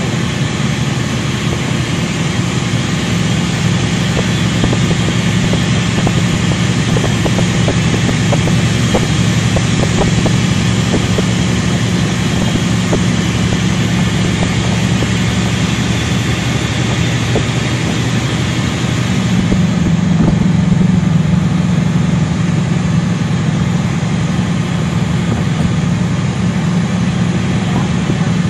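Caterpillar C13 ACERT six-cylinder diesel of a NABI 40-SFW transit bus running steadily. About 19 seconds in its note shifts and gets a little louder.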